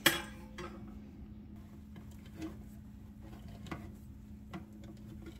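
A handheld crank can opener turning around the rim of a soup can, giving faint irregular clicks about once a second. A sharp knock right at the start is the loudest sound, over a steady low hum.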